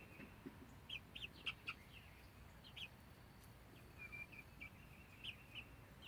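Faint, short high chirps and peeps from hens, scattered and often in quick pairs, with a brief held note about four seconds in.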